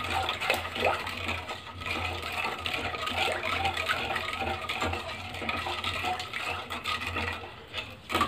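Metal spoon stirring besan halwa with milk in a pan, scraping and clinking against the pan without pause to keep lumps from forming, over a steady low hum.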